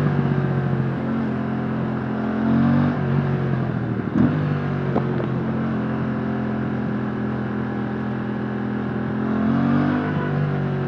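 Aprilia RS457's 457cc parallel-twin engine through its stock exhaust, ridden at modest revs. The revs climb about a second in and drop near three seconds, then hold steady, with one short sharp clack about four seconds in and another rise and fall near the end.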